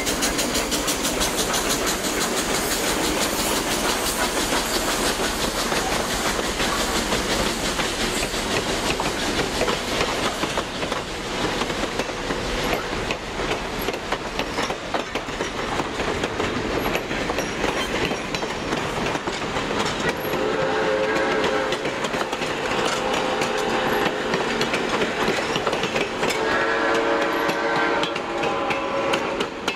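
Two steam locomotives, Quincy Railroad No. 2 and Clover Valley Lumber Co. No. 4, work past at close range with a rapid chuffing. A long string of passenger cars follows, rolling by with wheels clicking over the rail joints. Two stretches of a high pitched tone come in the last ten seconds.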